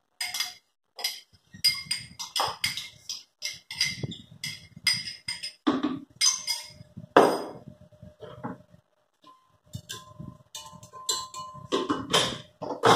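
Metal spoon tapping and scraping against a small glass cup, a quick irregular run of clinks with short ringing, as dissolved gelatin is scraped into a blender jar.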